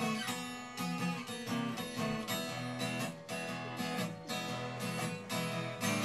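Solo acoustic guitar strummed in a steady rhythm, about two to three strums a second, during an instrumental break between sung verses.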